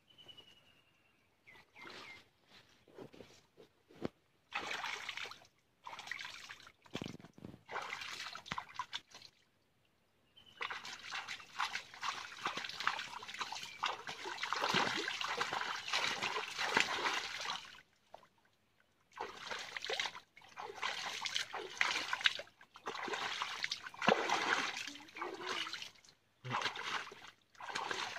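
Muddy stream water splashing and sloshing around a person wading thigh-deep and groping through it with their hands while fishing by hand. It comes in stretches of a few seconds, with brief pauses and one longer unbroken stretch in the middle.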